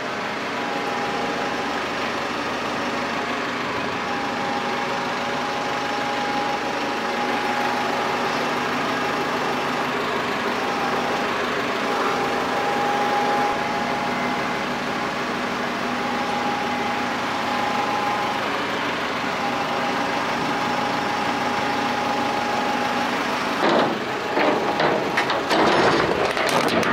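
Truck-mounted hydraulic loader crane working off the lorry's running engine: a steady engine drone with a whine that comes and goes as the crane lifts and lowers a heavy metal wheeling machine. Near the end comes a run of knocks and clatter as the machine is handled down.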